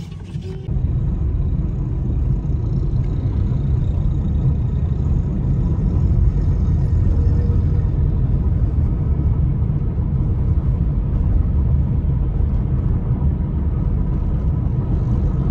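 Car driving along a road, heard from inside the cabin: a steady low rumble of engine and tyres that cuts in suddenly just under a second in.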